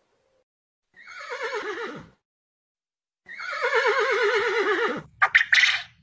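A pony whinnies twice: a shorter call whose pitch drops off, then a longer, quavering one. Near the end come a few short, sharp calls from a quail.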